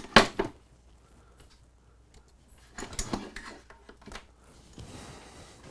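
Handling noise as objects are moved around: a knock right at the start, a pause of about two seconds, then a few soft knocks and rustles.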